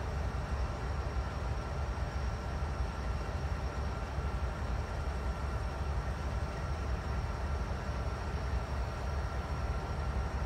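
Norfolk Southern diesel locomotive idling while stopped, a steady low rumble with a few faint steady tones above it.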